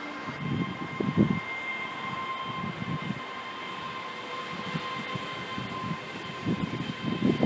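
Heard from inside a moving train: wheels clattering over rail joints and points in irregular clusters, under a steady high electric whine.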